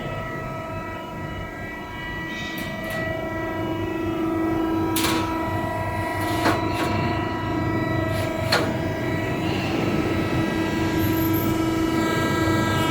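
Hydraulic press brake running: its pump unit gives a steady, many-toned hum, with a few sharp clicks over it.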